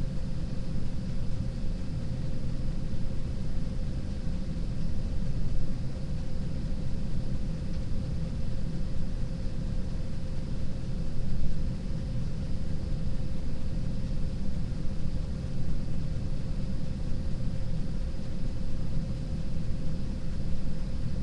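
Steady low rumble with a constant steady hum over it, picked up by a webcam's microphone in a room; no distinct events, only small swells in loudness.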